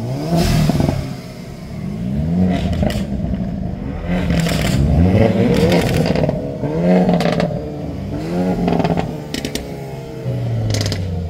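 A Hyundai N car's turbocharged 2.0-litre four-cylinder engine being revved again and again, each rev climbing and falling back. Sharp pops sound between some of the revs.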